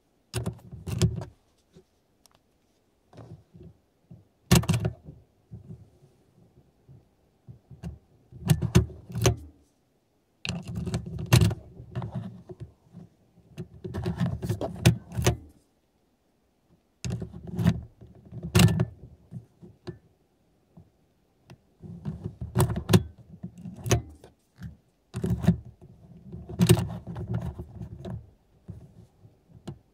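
A car key being turned on and off in the ignition switch again and again, with clicks of the switch and the keyring jangling, a cluster every few seconds. The key is being cycled so a transponder programmer can sniff the ID46 key's crypto data.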